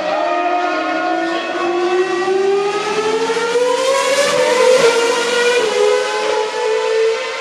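Racing car engine accelerating, its pitch rising steadily for about five seconds, dropping briefly near the end, as at a gear change, then climbing again.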